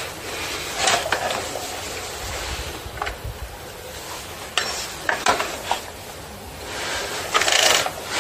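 Stihl MS 180 saw chain and guide bar clinking and scraping as they are handled, with scattered metal clicks and rattles, loudest near the end.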